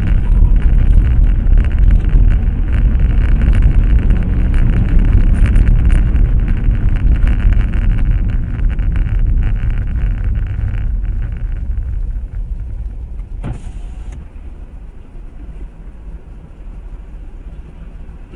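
A car on the move: steady engine and road noise that grows quieter in the second half, with one short knock about two-thirds of the way through.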